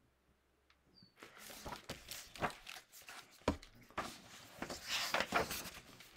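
Paper rustling and soft knocks of a picture book being handled and lowered, its pages rubbing, starting about a second in after near silence.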